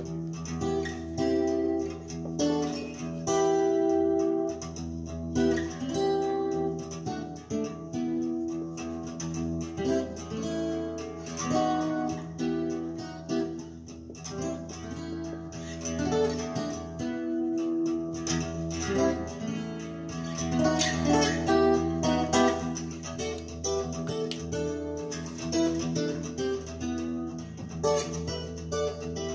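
Recorded music with plucked and strummed guitar and no vocals, played through a 2-watt 13JZ8 valve amplifier into 1959 Phonola 10.2-inch radio speakers.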